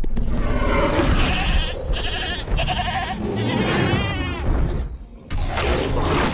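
Goat bleating, the cries wavering around the middle, over loud rough noise from a dinosaur-attack sound effect, with a fresh loud burst of noise near the end.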